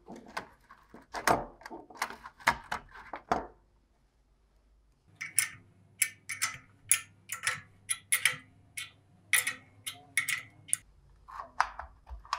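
Metal clicks and knocks of an old rusty spring scale and its hook being handled on a wooden bench. After a short quiet gap comes a regular run of sharp metallic clicks, about two a second, over a low steady hum.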